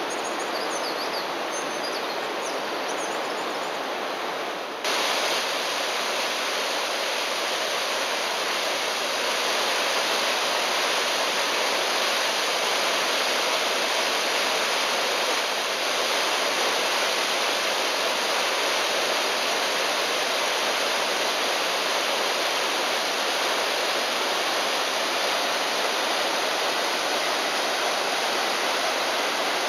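Steady rush of a mountain waterfall's falling water, with a few high chirps over it in the first few seconds. About five seconds in, the rush abruptly becomes louder and fuller.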